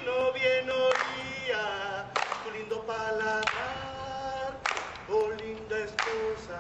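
Voices singing slowly without instruments, choir-like, in long held notes with short breaks between phrases.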